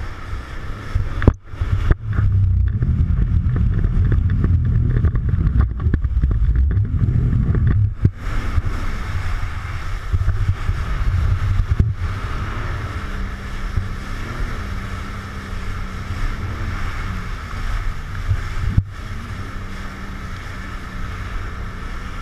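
Jet ski running at speed, its engine note wavering up and down, over rushing water and wind buffeting the microphone. A few sharp thumps cut through.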